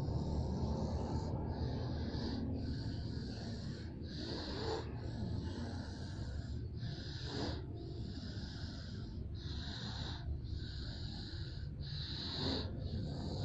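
Snoring during sleep: raspy snoring breaths that repeat about once a second, over a steady low hum.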